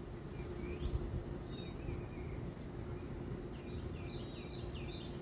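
Outdoor ambience with small birds chirping: scattered short high chirps and a quick run of several about four seconds in, over a steady low background rumble and a faint steady hum.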